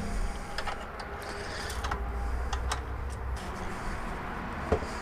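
Rusty ATV exhaust pipe and muffler being handled on a workbench: light scraping and a few sharp knocks of metal parts.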